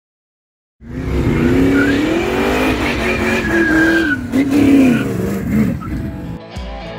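1972 Dodge Coronet wagon doing a burnout, starting about a second in: the engine revs with a wavering pitch while the rear tyres squeal as they spin on the pavement. Near the end it gives way to plucked blues guitar music.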